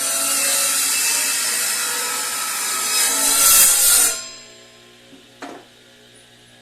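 Electric power tool cutting or sanding wood, running loud for about four seconds before it is switched off and winds down. A single short knock follows about a second later.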